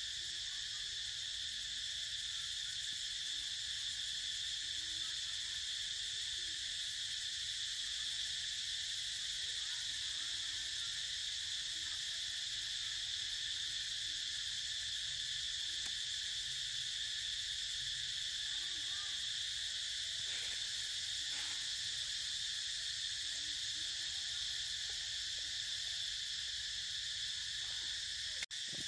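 A steady chorus of forest insects, a continuous high-pitched drone that holds an even level, with a brief break near the end.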